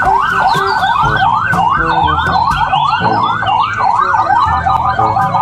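Toy police car's electronic siren in a fast yelp. Its pitch sweeps up and falls back about three times a second.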